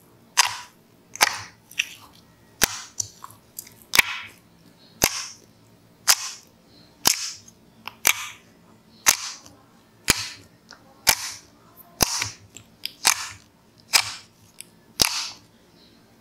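Thick basic slime pressed and poked with fingers in its tub, giving a sharp air-pocket pop with a short squishy hiss about once a second.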